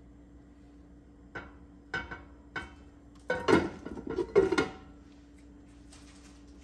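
Glass pan lid knocking and rattling against a frying pan as it is set down: three light clinks, then a louder clatter of knocks with a brief ringing tone about three and a half to five seconds in. A steady low hum runs underneath.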